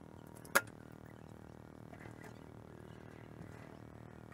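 A single sharp metallic click about half a second in, followed by a few faint light clicks, from a dial caliper being handled at a metal tool chest drawer.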